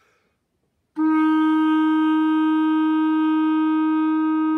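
Clarinet playing one long, steady note: written F, fingered with the left thumb only. It starts about a second in and is held.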